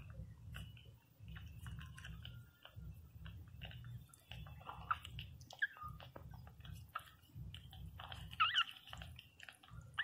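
Newborn Pinscher puppies nursing, with wet suckling and smacking sounds and a few short, high whimpering squeaks, the loudest a little past eight seconds in.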